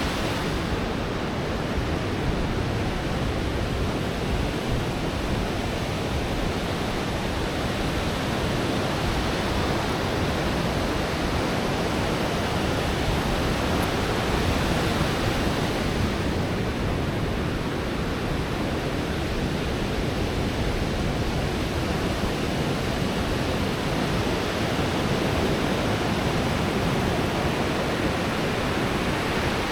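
Pacific surf breaking and washing up on a sand beach: a steady, unbroken rush of waves.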